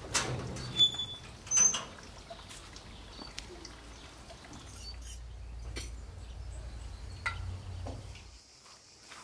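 Green sheet-metal garden gate being unlatched and opened: three sharp metallic clanks in the first two seconds, with short high squeaks.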